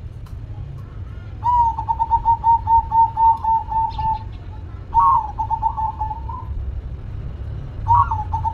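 Zebra dove (perkutut) calling in three runs of quick, evenly repeated cooing notes, about five a second, over a steady low background rumble. The second and third runs each open with a higher note.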